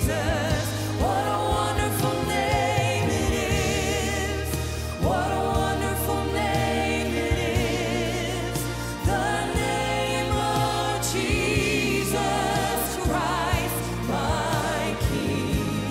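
A woman's lead voice singing a worship song, with backing singers and a live band (bass, keys and drums) under her.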